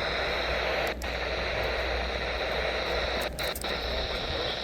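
Weather radio receiver hissing with static between broadcasts, broken by a few brief dropouts.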